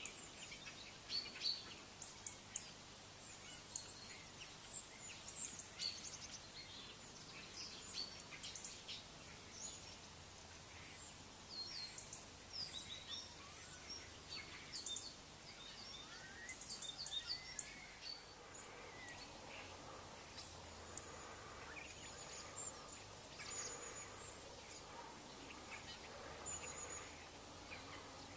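Small birds chirping and calling outdoors: many short, high chirps and quick whistled notes over a steady faint hiss of background noise, busiest in the first several seconds and thinning out after.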